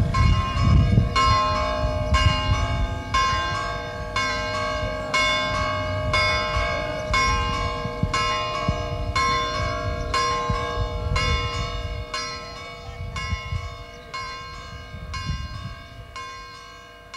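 Church bells pealing, a stroke about twice a second with the tones ringing on between strokes, over a low rumble; the sound fades toward the end.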